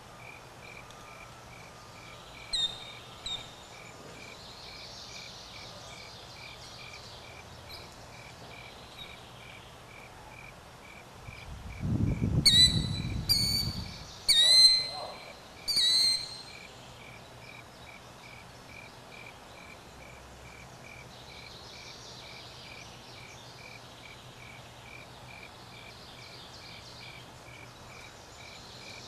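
Killdeer calling: two short high notes a few seconds in, then four loud, sharp calls, each dropping slightly in pitch, about a second apart in the middle. Under them runs a steady pulsing insect trill, and a low rumble comes with the first of the loud calls.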